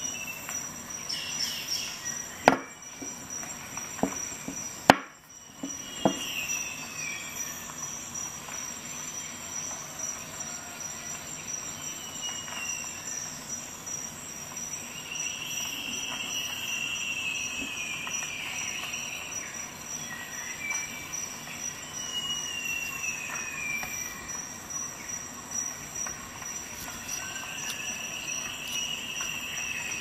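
Steel tools of a Flexcut Carvin'Jack folding carving knife being handled: a few sharp clicks as blades snap against their locks, the loudest about five seconds in, then repeated squealing metal scrapes that fall in pitch as the blades are worked in and out of the handle.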